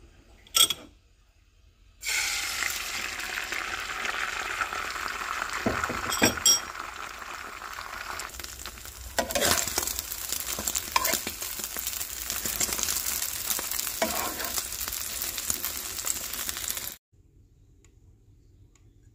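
Eggs frying in hot oil in a nonstick frying pan: a loud sizzle starts suddenly about two seconds in, with a spatula scraping and stirring through the eggs several times, and cuts off abruptly near the end. A sharp knock comes about half a second in.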